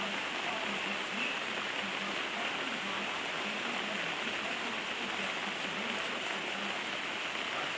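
Steady rain falling, an even, unchanging hiss of drops hitting the ground.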